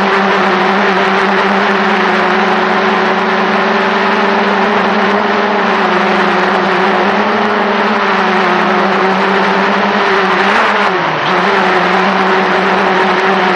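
Xiaomi Mi Drone quadcopter hovering, its four motors and propellers giving a loud, steady buzz heard from right beneath the rotors. About ten and a half seconds in, the pitch briefly dips and then recovers as the motors adjust.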